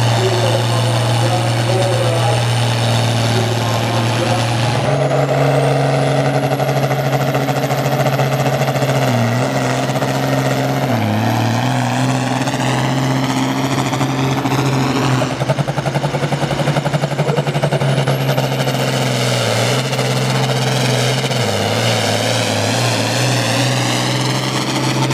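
International Harvester Turbo diesel tractor running at full throttle while pulling a weight-transfer sled, the engine note loud and steady. A high turbocharger whine rises in pitch about five seconds in and again later.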